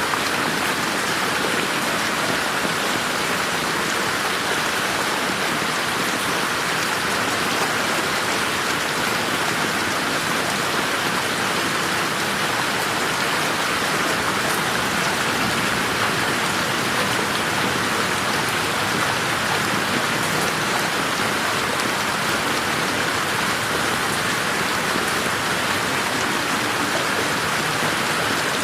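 Steady rain falling, an even hiss of drops on surfaces with no thunder or distinct events.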